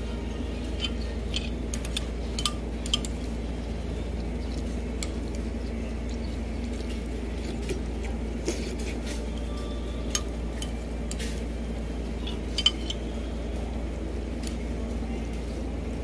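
Scattered sharp clinks of cutlery and dishes, a dozen or so, the loudest near the end, over a steady low background hum.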